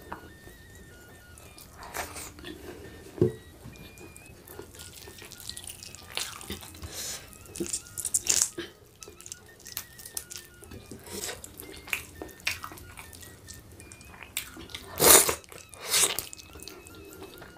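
Wet eating sounds from a person eating chicken rendang and rice by hand: scattered lip smacks and moist chewing clicks, with two loud smacks near the end.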